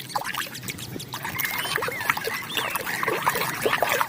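Water splashing and trickling as plastic toys are washed by hand in water, with many small splashes and drips.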